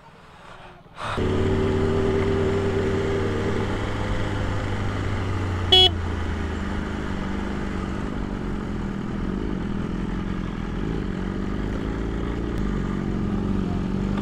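Superbike engine starting about a second in and running steadily, then pulling away at low speed. A short horn toot comes about six seconds in.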